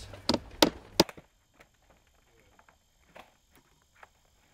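Claw hammer nailing vinyl siding panels along their top nailing hem. Three sharp strikes come in the first second, then two faint taps later on.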